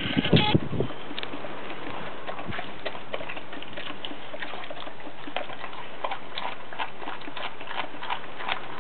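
Australian cattle dog chewing and licking raw green tripe: a run of small clicks and smacks, with a few louder knocks in the first half second, over a steady hiss.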